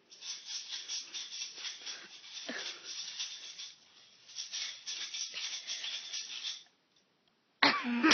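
Quick, even rattling like a shaken rattle, about four to five shakes a second, in two runs with a short break between; a child's voice cries out loudly right at the end.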